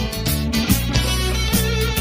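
Instrumental passage of a rock song, with no singing: strummed guitars over a steady beat.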